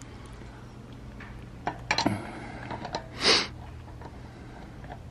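A few light metallic clicks as a steel lug wrench is fitted onto a wheel's lug nut, then a short sharp breath about three seconds in, over a low steady hum.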